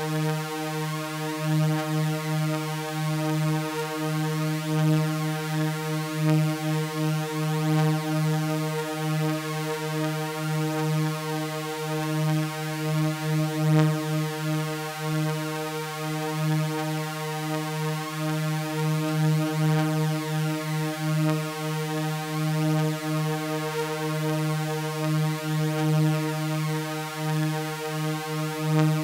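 Synthesizer drone of stacked sustained sawtooth waves on one low pitch, holding steady with a slight slow pulsing.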